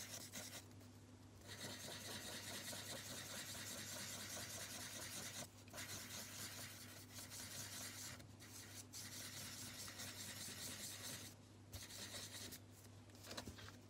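Felt-tip marker pen scribbling on paper, a faint, steady scratchy rasp broken by several short pauses.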